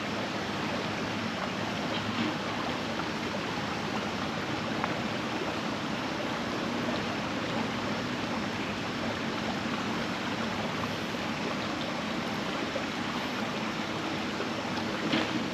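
Creek water flowing steadily over the streambed, an even rushing babble.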